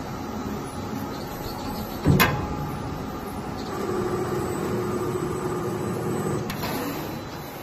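CNC panel bender working sheet steel: steady machine noise, a sharp metal clank about two seconds in, then a steady motor hum for about three seconds that stops with a click.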